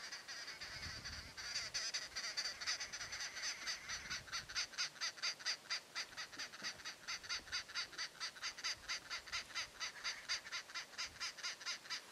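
Rapid, rhythmic high-pitched animal calling: a steady high buzz that breaks into evenly spaced pulses, about five a second, and stops abruptly near the end.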